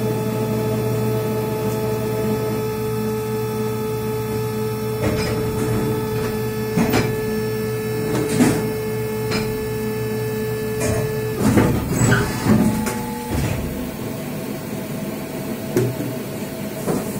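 Plastic injection moulding machines running with a steady mechanical hum and a held tone that stops about two-thirds of the way through. Scattered knocks and clatter come from moulded plastic buckets being handled and stacked.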